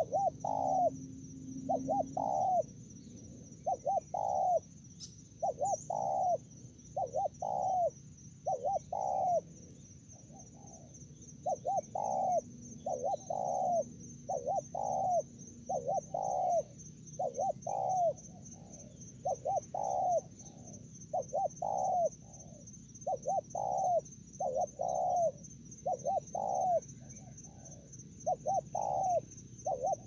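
A dove cooing over and over, short low coos in twos and threes about once a second, with a steady high-pitched insect trill underneath.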